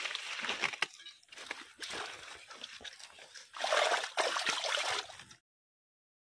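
Shallow pond water sloshing and splashing as a bamboo fish trap is moved through it, with many small clicks and a louder stretch of splashing about three and a half seconds in. The sound cuts off abruptly about five seconds in.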